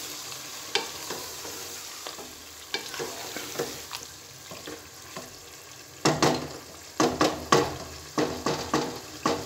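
Wooden spoon stirring a potato and aubergine curry in a nonstick pot, with the frying masala sizzling steadily underneath. From about six seconds in come louder knocks of the spoon against the pot.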